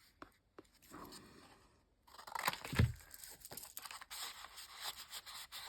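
Paper being handled: a few light clicks, then from about two seconds in a stretch of rustling and scraping with one heavier thump.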